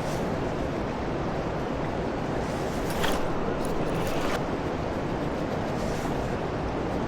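Steady rush of river current, with a brief louder scratchy burst about three seconds in.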